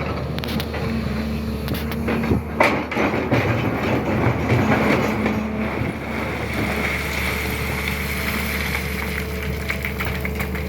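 SANY excavator's diesel engine running steadily, with a louder stretch of clattering and scraping from about two and a half to six seconds in.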